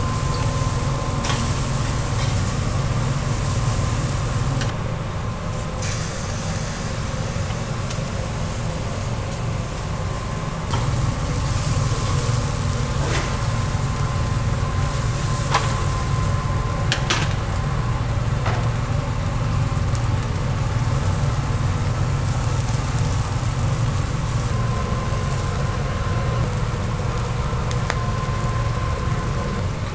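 Eel fillets grilling on a wire grate over gas infrared burners: a steady low rumble with faint sizzling, and a few sharp clicks of steel tongs against the grate.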